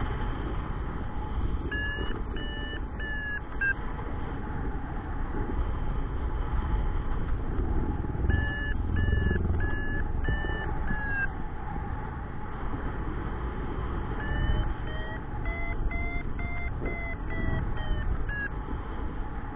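Paragliding variometer beeping in three runs of short, evenly spaced beeps, about two a second, over steady wind rushing on the microphone. In the last run the beeps rise and then fall in pitch. The beeping is the vario's climb tone, the sign of the glider rising in lift, climbing faster as the pitch goes up.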